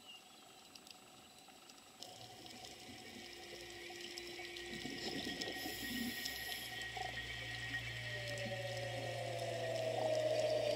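Underwater sound picked up by a diver's camera: a faint hiss of water that grows louder, joined about halfway by a steady low hum and, in the last few seconds, a slowly falling tone.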